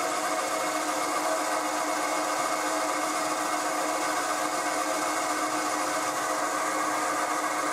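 Milling machine spindle running steadily, a countersink in the drill chuck cutting a chamfer into the mouth of a drilled hole in 4140 steel. An even machine hum with several steady tones.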